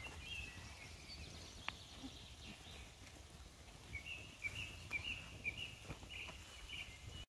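Faint outdoor ambience with a small bird chirping, a quick series of short high notes that grows busier in the second half, and a single sharp click about two seconds in.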